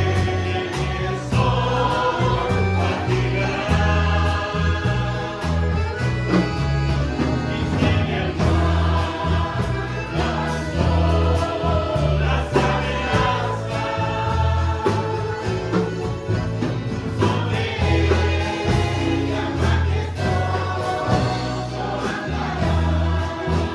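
Christian worship song performed live: a group of voices singing together over a string band of mandolins, acoustic guitar, electric bass and accordion, with a prominent bass line.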